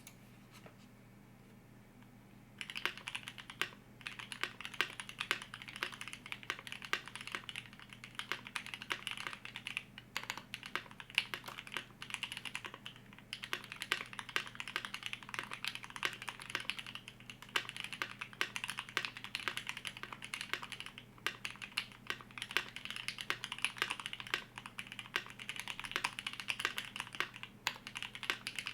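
Typing on a KBDfans D65 mechanical keyboard with a brass plate, lubed H1 switches and GMK keycaps: fast, continuous key clacks with short pauses, starting about three seconds in.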